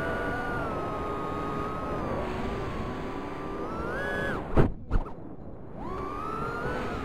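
Micro FPV quadcopter's Emax 1106 brushless motors and tri-blade props whining, the pitch rising and falling with throttle. About four seconds in the whine climbs, then come two loud thumps about a third of a second apart; the whine dips briefly and rises again.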